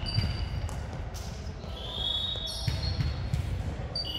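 Sneaker soles squeaking on the hardwood floor of a sports hall as volleyball players shift about: several short high squeaks, a longer one about two seconds in and another near the end, over low thuds and the echo of a large hall.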